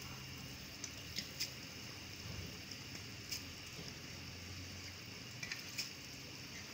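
Pot of mutton stock with freshly added rice simmering, with faint bubbling and a few soft pops over a low steady hum.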